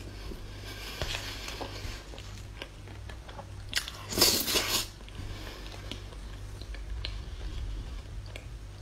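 Close-up mouth sounds of chewing a soft chocolate-covered sponge cake, with small wet clicks. About four seconds in there is a louder burst as a spoonful goes into the mouth. A low steady hum runs underneath.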